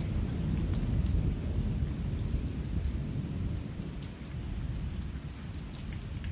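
Rolling thunder rumbling low and dying away over the first four seconds or so, over steady rain, with single raindrops ticking close by.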